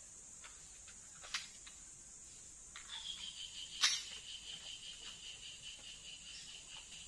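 Steady high insect buzz, joined about three seconds in by a fast, pulsing cricket-like trill. A few faint sharp clicks are also heard, the sharpest just before the four-second mark.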